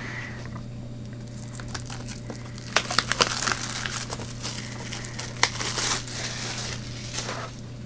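A DVD box set's packaging being opened by hand: plastic and cardboard crinkling, with a run of sharp clicks and rustling that gets busy about three seconds in and dies down near the end.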